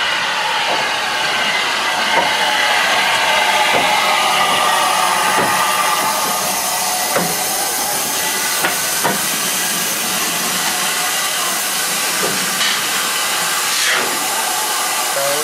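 Southern Railway U class steam locomotive No. 1638 moving slowly past at close range, with a loud, steady hiss of steam. Scattered short metallic clanks and knocks come from the running gear.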